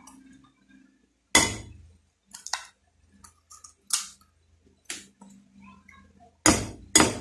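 A utensil clinking against a bowl while raw eggs are beaten: about half a dozen sharp clinks at uneven intervals, two loud ones close together near the end.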